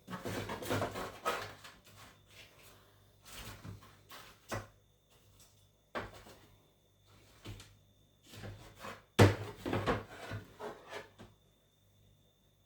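Irregular knocks, clatters and rubbing from food and kitchen things being handled on a worktop while a burger is put together. The sounds come in short bursts, with the loudest knock about nine seconds in.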